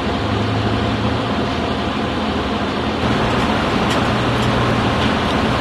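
Crane's engine running steadily while a load hangs from its hook, with a couple of faint clicks about four seconds in.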